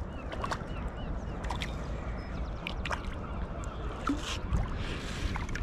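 Hooked mackerel splashing at the surface beside a sit-on-top kayak, short scattered splashes over a steady low rumble of wind and water.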